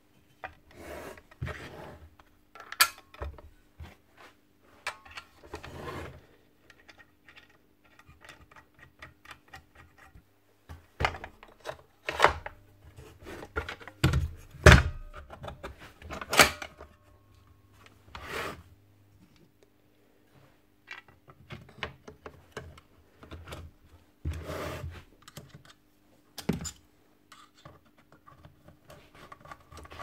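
Parts of a DeWalt 54V cordless circular saw being handled and fitted back together by hand: scattered knocks, clicks and rubbing of plastic housing and metal parts, with a few louder knocks in the middle.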